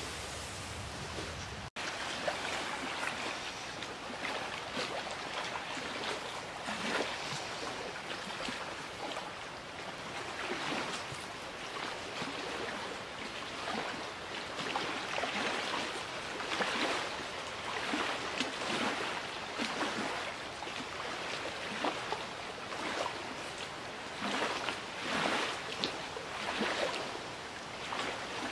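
Small wind-driven lake waves lapping and slapping at the water's edge, irregular splashes about once or twice a second over a steady rush of water and wind. The sound drops out for an instant about two seconds in, then resumes.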